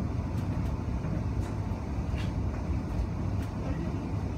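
Cabin of an electric passenger train under way: a steady low running rumble with a few short clicks and knocks scattered through it.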